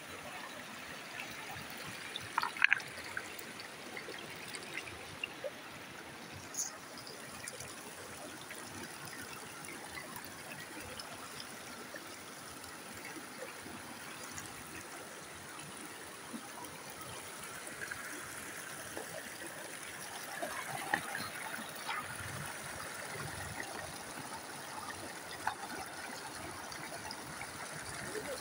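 Creek water trickling over rocks, a steady hiss, with a few sharp knocks about two and a half seconds in.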